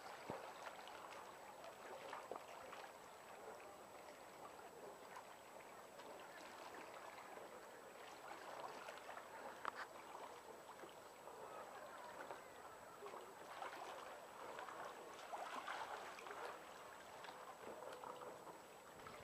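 Faint, near-silent harbour-side ambience: water lapping, with scattered soft clicks.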